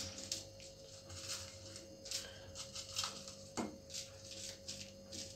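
Plastic bag crinkling in a series of short rustles as chillies are taken from it and dropped into a steel pot, over a faint steady hum.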